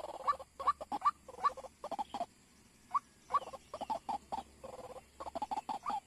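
White-breasted waterhen calling: a fast series of short, repeated notes that breaks off for about a second halfway through, then starts again.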